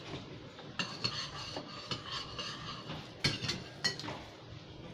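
Spoons and plates clinking during a meal: scattered sharp clinks of cutlery on dishes, several short ringing ones, the loudest a little over three seconds in.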